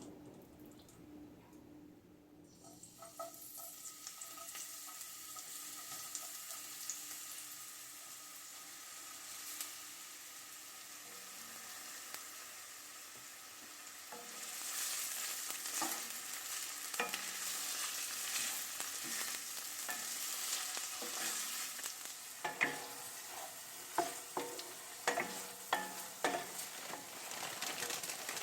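Food sizzling in a frying pan. The hiss starts a few seconds in and grows louder about halfway through, with sharp taps of a utensil against the pan in the last few seconds.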